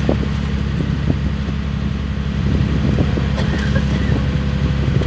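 A boat's engine running steadily, a low, even drone.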